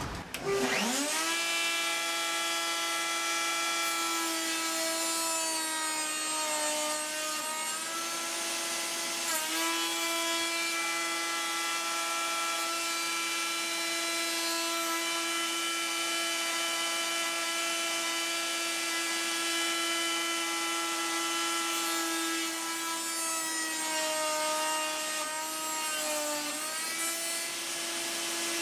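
Router in a benchtop router table switching on and spinning up, then running at a steady high whine while cope cuts are made on the ends of cabinet-door rails with a half-inch-shank rail-and-stile bit. Its pitch sags briefly a few times as the bit bites into the wood.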